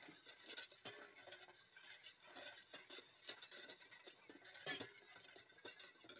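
Faint scraping and light clinks of a metal spoon stirring liquid in a stainless steel bowl, with one louder clink about four and a half seconds in.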